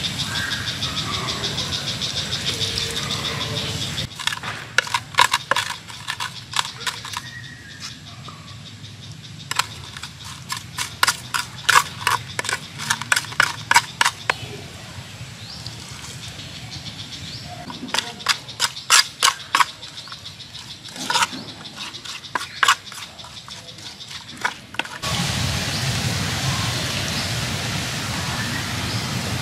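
Wooden pestle pounding herbs and spices in a clay mortar: runs of sharp knocks, two or three a second, broken by pauses. A steady background rush fills the first few seconds and returns near the end.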